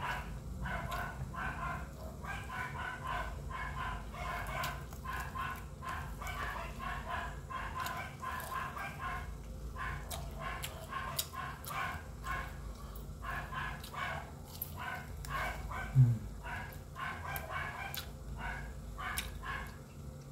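Close-up chewing of fried chicken and rice: a rhythmic run of short, wet mouth noises, with one brief louder low sound about sixteen seconds in.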